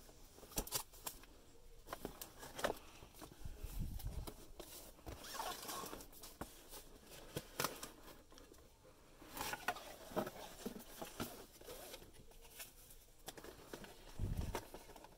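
Cardboard product boxes being handled and opened by hand: scattered clicks, scrapes and rustles of cardboard and packaging, with a dull thump about four seconds in and another near the end.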